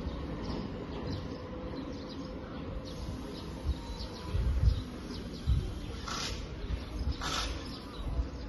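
Small-town street ambience: a steady low rumble with occasional low thumps, and short high chirps, two of them standing out about six and seven seconds in.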